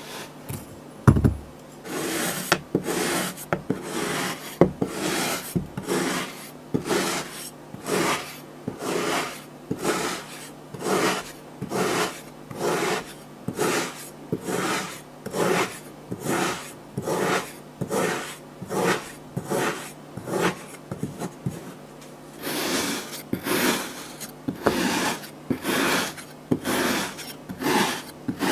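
A tool scraping through kinetic sand in a steady run of rasping strokes, a little over one a second, with a short pause near the end. A single knock comes about a second in.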